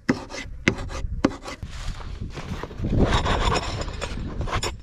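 A knife chopping chili on a plastic cutting board: three sharp taps about half a second apart. Then rustling and scraping as hands rummage in a fabric bag, with a few clicks near the end.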